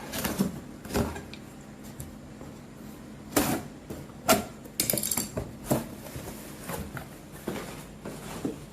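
Items and packaging being handled during unboxing: scattered knocks and taps with short rustles of packaging, and a denser scratchy rustle about five seconds in.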